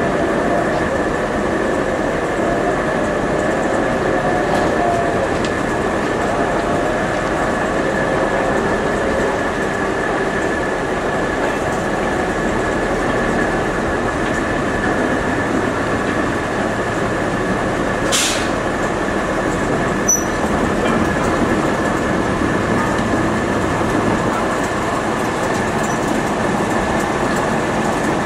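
Small industrial shunting locomotives coupled to a goods van rolling slowly along the track, engine running and wheels on the rails, with a steady high whine throughout. A sharp click comes about 18 seconds in.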